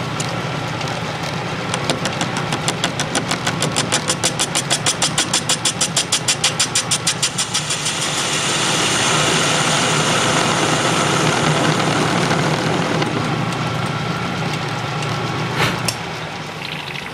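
Atlas metal lathe facing a cast iron workpiece with a carbide insert. At first the tool strikes the rough bandsawed face in an even, rapid run of clicks, once per turn of the work. About eight seconds in the cut becomes continuous and louder, a steady hiss of cutting over the lathe's hum, and it falls away near the end as the cut finishes.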